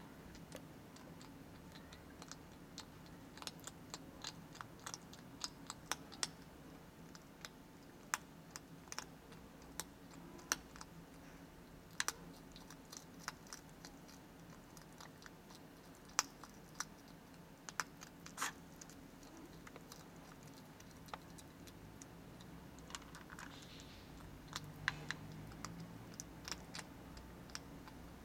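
Hedgehog eating dry cat kibble from a plastic bowl: faint, irregular sharp crunches and clicks in clusters, with short pauses between them.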